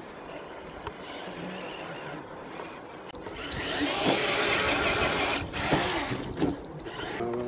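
1/10 scale RC crawler's electric motor whining thinly while its tyres scrabble in loose sand. About three and a half seconds in, it gets much louder as the wheels churn and the truck slides back down the sand slope, sand spraying.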